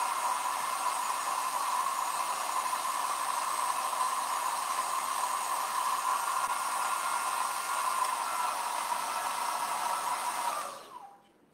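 Handheld hair dryer blowing steadily with a whine, drying freshly applied chalk paste. It is switched off near the end, its motor winding down.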